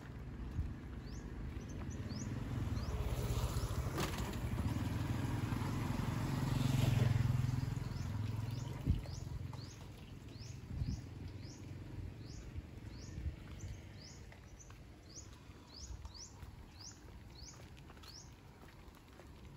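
A vehicle passes on the road, its rumble building to a peak about seven seconds in and then fading. Throughout, a bird chirps over and over with short, high calls, and a few faint taps can be heard.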